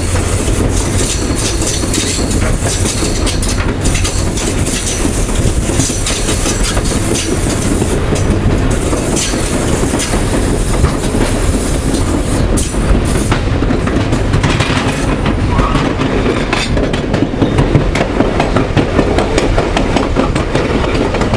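A moving train's wheels run on the rails with a steady rumble and clatter, with many sharp clicks scattered throughout.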